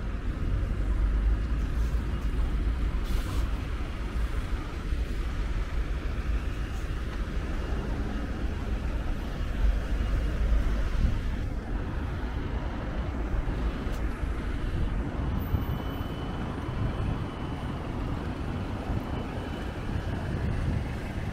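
Street ambience of road traffic: a continuous low rumble of vehicles with a wash of background noise.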